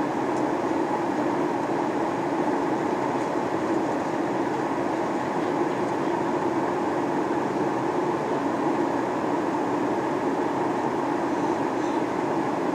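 Steady in-cabin noise of a Boeing 737-800 in flight: the CFM56-7B engines and the airflow over the fuselage, an even rumble that holds at one level.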